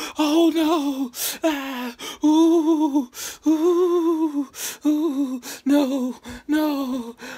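A man whimpering and wailing in pain from a stubbed toe, in drawn-out, high, wavering cries broken by sharp gasping breaths.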